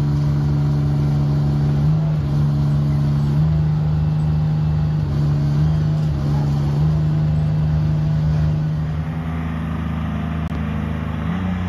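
Heavy-haul truck's diesel engine pulling an oversize load at crawling speed, a steady low drone whose pitch shifts in small steps; it drops off a little about nine seconds in.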